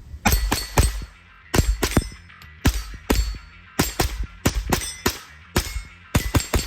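A JP-15 .22 LR semi-automatic rifle firing a fast string of about a dozen shots, in quick pairs, with steel targets ringing on the hits.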